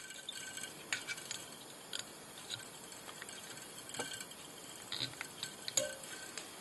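Fine copper wire being wound onto a fly-tying hook held in a vise and pinched into a thorax ball by the fingers: faint, irregular small clicks and ticks, a little louder about a second in, around four seconds and near the end.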